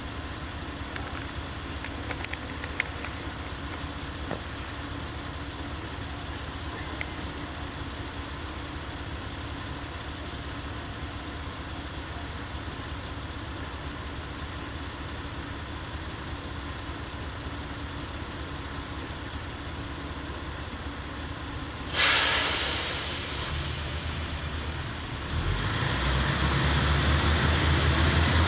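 Diesel railcar idling with a steady low engine hum. About three quarters of the way through, a sudden loud hiss of air from the brakes fades over a couple of seconds, then the engine throttles up as the railcar pulls away.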